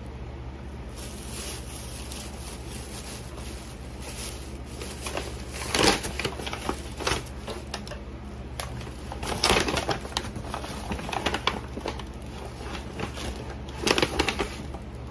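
Takeout bag and plastic food containers rustling and crinkling as they are unpacked by hand, with louder bursts about six, nine and fourteen seconds in.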